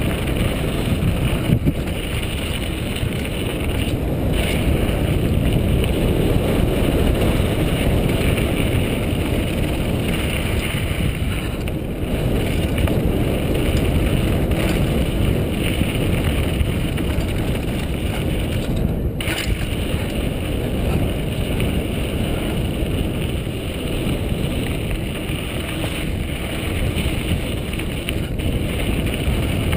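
Wind rushing over a helmet-mounted GoPro on a moving mountain bike, mixed with the steady noise of tyres rolling on a dirt trail. A few sharp knocks come as the bike goes over bumps.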